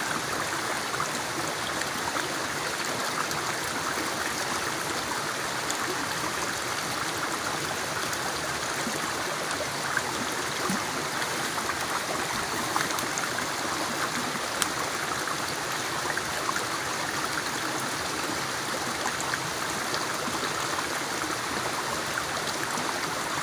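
A small forest stream running over rocks and a fallen log: a steady rush of flowing water.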